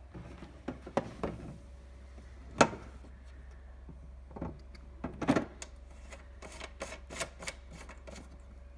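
Hard plastic knocks and clunks as a plastic accessories box is seated on a steam cleaner's metal handle, the loudest about two and a half seconds in. This is followed by a quicker run of light clicks as the securing knobs are turned.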